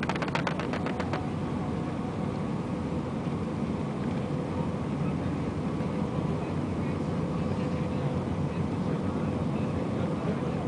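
Airbus A320 cabin noise on final approach: the steady rush of engines and airflow, with a faint steady hum. A brief rattle of rapid clicks sounds in the first second.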